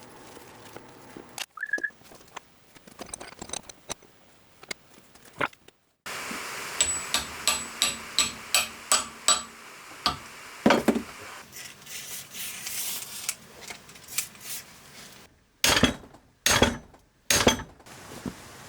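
Hammer blows on metal parts of an old turbine governor as it is knocked apart: a quick run of light taps with a high metallic ring, then a single loud knock and, near the end, a few heavier blows.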